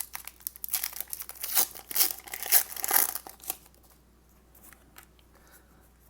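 Foil wrapper of a Pokémon trading card booster pack crinkling and tearing open, a rapid run of crisp crackles for about three and a half seconds.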